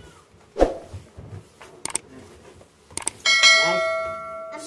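A bell-like notification chime from a subscribe-button animation rings out about three seconds in and fades. It comes just after two sharp mouse-click sound effects. Near the start there is a single dull thump.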